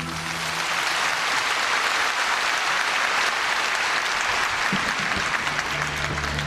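Audience applauding: dense, even clapping, with a low note of music coming in underneath near the end.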